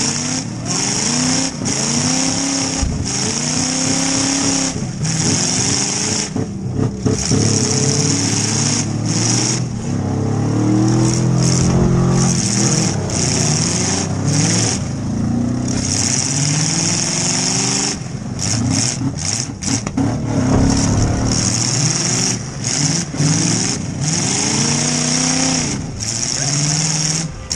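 Demolition derby car's engine revving up and dropping back over and over as it is driven hard, heard from inside the gutted cabin. A loud high hiss runs over it, broken by short gaps.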